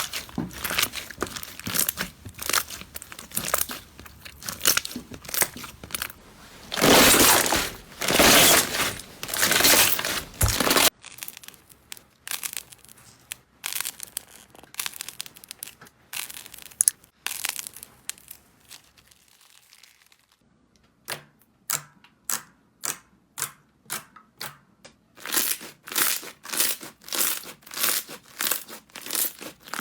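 Slime being squeezed and pressed by hand, giving dense crinkly crackling that turns to evenly spaced sharp clicks and pops, about two to three a second, in the later part.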